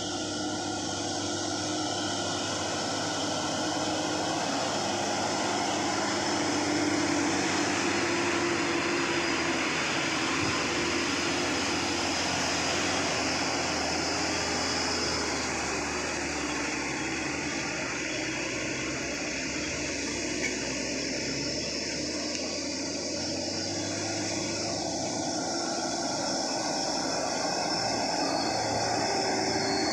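Diesel engines of loaded Hino and Fuso dump trucks labouring uphill under heavy load, a steady drone that swells slightly as the trucks pass.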